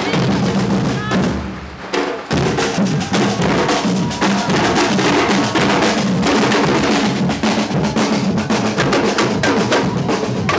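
A street drum band of snare drums and large bass drums plays a fast, dense rhythm. It drops away briefly about two seconds in, then comes back in together.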